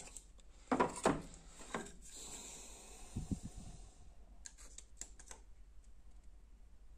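Light clicks and taps of a digital caliper being slid and closed on pieces of planed oak, with a soft scrape and a couple of dull knocks of the wood about three seconds in.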